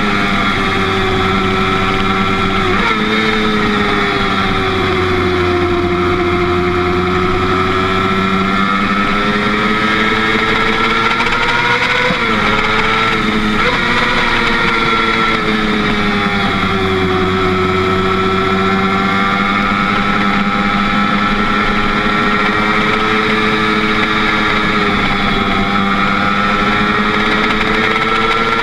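Motorcycle engine running at road speed, its pitch slowly rising and falling as the throttle is rolled on and off, with brief dips about three seconds in and again midway.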